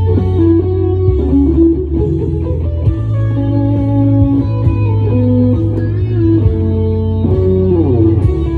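Jay Turser Les Paul electric guitar played as a lead line of held single notes with string bends and slides over a steady low bass backing. A falling slide comes near the end.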